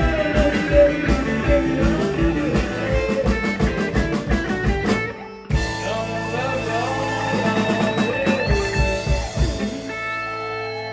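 Live rock band: a male singer over electric guitar and a drum kit playing a steady beat. The band stops for a moment about five seconds in, comes back in, and holds a final chord near the end.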